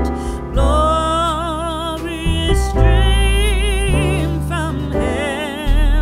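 Background music: a wavering vibrato melody over held bass notes that change every second or so.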